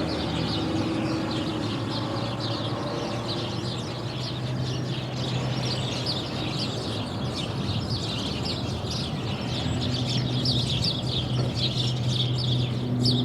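Countryside ambience: many small birds chirping busily and continuously over a low, steady hum of light distant traffic, which grows a little stronger about four seconds in and again near the end.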